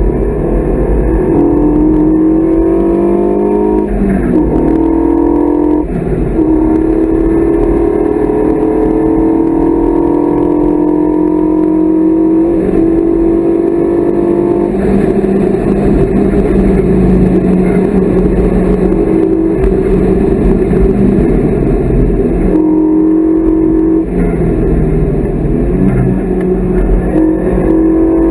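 Renault Mégane 3 RS's turbocharged four-cylinder engine heard from inside the cabin, pulling hard with its pitch climbing and dropping at each upshift, then holding at speed with road and wind noise, with a few shifts near the end.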